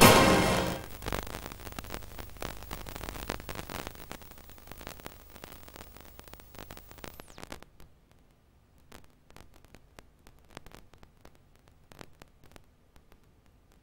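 The final note of a closing theme tune dies away in the first second, leaving the steady hiss, hum and scattered clicks of an old videotape recording, which drop quieter about eight seconds in.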